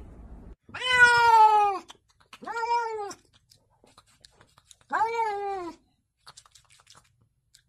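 A domestic cat meowing three times: drawn-out calls that arch and fall in pitch, the first the longest and loudest.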